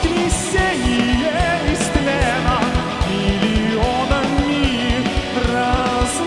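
Live heavy metal band playing. Drum kit with a fast, even kick drum at about six beats a second and cymbal crashes, under electric guitar and keyboards, with a wavering, bending melody line and singing.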